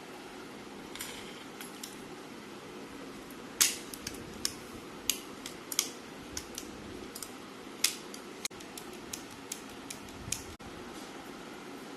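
Irregular light metallic clicks and clinks of tools and small metal parts being handled, about a dozen in all, the sharpest about three and a half seconds in, over a steady low hum.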